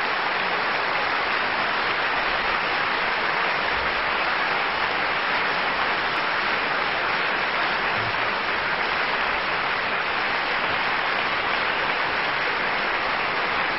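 Large audience applauding, a thick, even clapping that holds steady at one level throughout.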